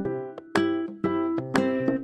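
Background music: a plucked string instrument picking out a light tune, several notes a second.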